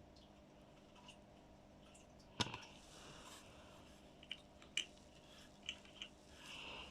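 Faint clicks and taps from handling the pieces of a miniature toy house, the sharpest about two and a half seconds in, several lighter ones later, and a soft rustle near the end.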